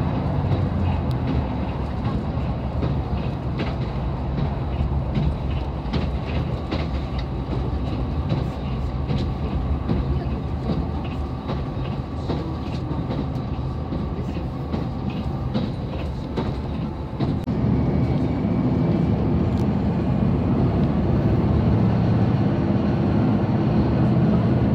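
KiHa 187 series diesel railcar running at speed, heard from inside the passenger cabin: the diesel engine runs steadily while the wheels click rhythmically over rail joints. About two-thirds of the way through, the engine grows louder.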